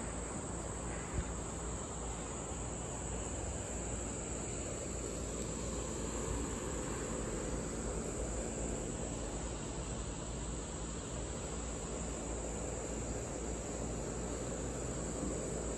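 Steady, high-pitched chorus of insects such as crickets droning without pause, with a low rumble underneath.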